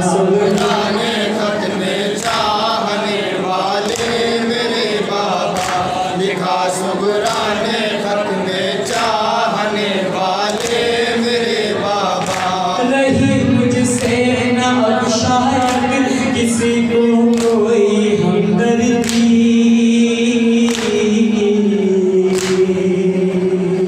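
A group of men chanting a noha in unison through microphones, in long held notes, with sharp slaps of hands beating on chests (matam) about once a second.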